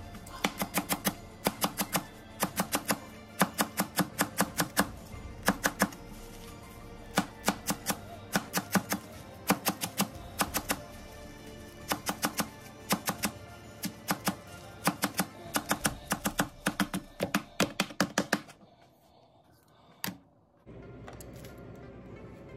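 Chef's knife chopping fresh cilantro on a plastic cutting board: quick runs of sharp knocks, several a second, over background music. The chopping stops about eighteen seconds in, and a single knock follows a little later.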